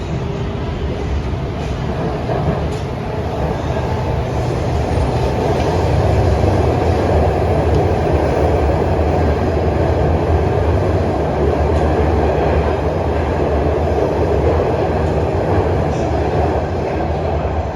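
Shenzhen Metro Line 1 CSR Zhuzhou Type A subway train running through the tunnel, a steady rumble of wheels on rail. It grows louder a few seconds in and eases slightly near the end.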